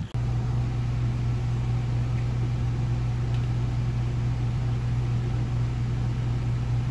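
Steady low hum inside a vehicle's cabin, with an even background hiss.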